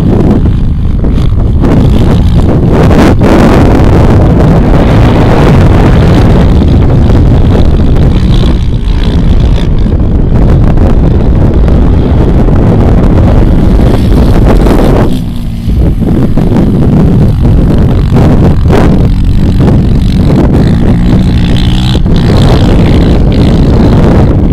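Sport quad (ATV) engine revving up and down as it is ridden on sand, mixed with heavy wind buffeting on the microphone. The wind noise eases briefly just past halfway.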